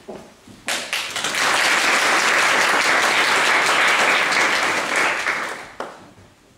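Audience applauding, starting suddenly about a second in, holding steady, and dying away near the end.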